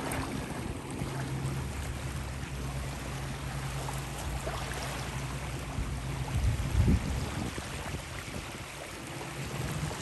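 Wind on the microphone and small waves lapping in shallow water, with a low steady hum underneath and a stronger gust about seven seconds in.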